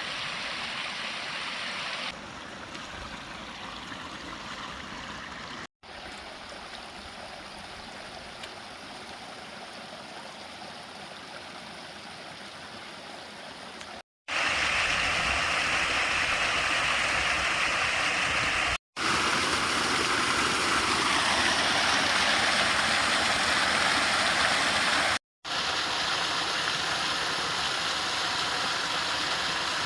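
A small stream running over rocks, heard in several short clips joined by brief silent cuts; the water is louder and fuller in the second half.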